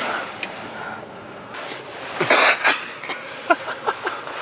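Short, breathy vocal outbursts from people inside a car: two loud bursts about two and a half seconds in, then a few quick short sounds near the end, over a low, steady background.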